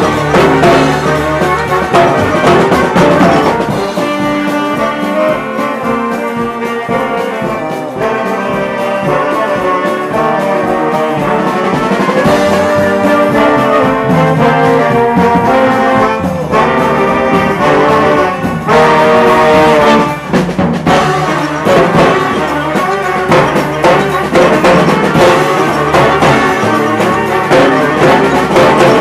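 Live brass band playing, led by a section of trombones with trumpets and saxophones, in a continuous run of loud ensemble phrases.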